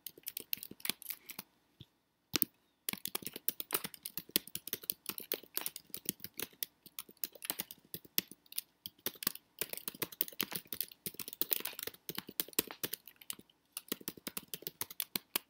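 Fast typing on a computer keyboard, keys clicking in quick runs, with a short pause about two seconds in.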